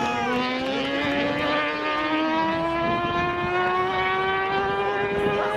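A racing engine at full throttle, pulling hard in a high gear, its pitch climbing slowly and evenly.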